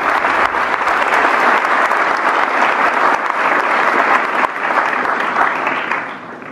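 Audience applauding: a dense, steady clapping that dies away near the end.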